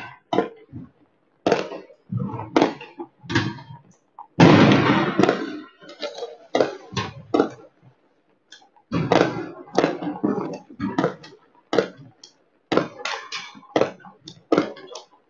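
Fireworks and firecrackers going off in many sharp bangs at irregular intervals, some in quick clusters, with a short lull a little past the middle.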